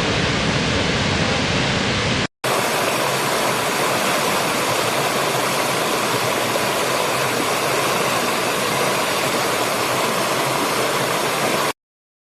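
Steady rush of a waterfall, broken by a sudden cut about two seconds in, after which the same rushing water resumes from a second recording and then stops abruptly near the end.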